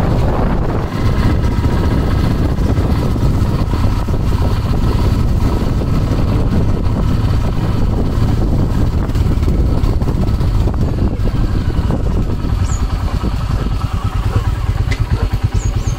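Motorcycle engine running while being ridden, a steady low rumble that turns into a distinct rapid pulsing near the end as it slows.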